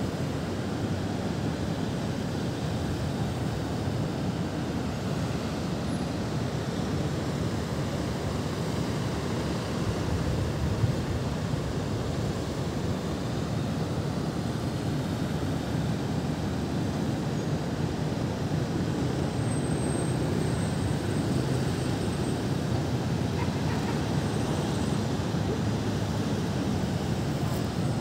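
Steady city traffic hum, a continuous low rumble with no distinct events.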